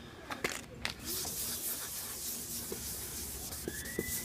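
Rubbing over a cloudy plastic car headlight lens coated with Deep Woods Off insect repellent, a steady scratchy wiping that starts about a second in after a couple of short knocks. The repellent's solvent is clearing the fogged lens.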